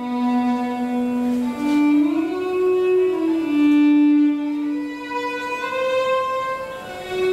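Solo violin playing a slow melody of long, held notes, climbing from low notes to higher ones.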